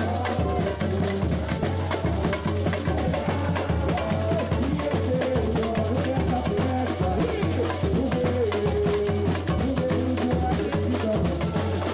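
Samba music from a carnival street band: a steady drum beat from the percussion section with shakers over it and a melody line.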